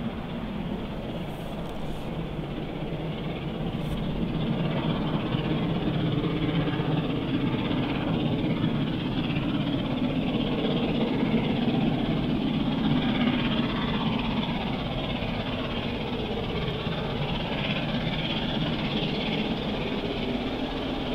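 LNER Peppercorn A1 Pacific steam locomotive 60163 Tornado, a three-cylinder 4-6-2, working hard up the grade with eleven coaches in tow. Its exhaust gets louder from about four seconds in as it draws nearer.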